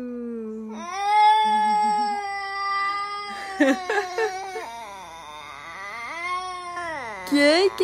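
A girl's wordless vocalizing: long, high held notes that slide up and down, with a few short clicks about halfway through.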